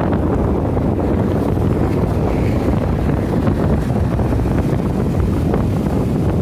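Loud, steady wind buffeting the microphone, a low rushing noise with no break.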